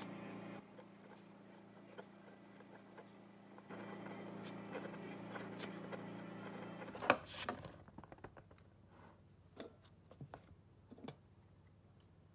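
Ballpoint pen scratching as it writes on card, over a low steady hum. About seven seconds in comes a sharp, loud crack, followed by a few light knocks and clicks.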